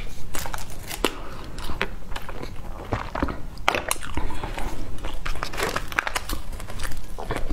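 Close-miked chewing of food: many short, crisp clicks and mouth smacks as a mouthful is eaten.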